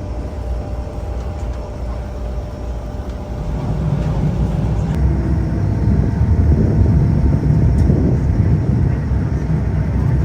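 Passenger boat's engine running steadily with a low rumble, getting louder about three and a half seconds in.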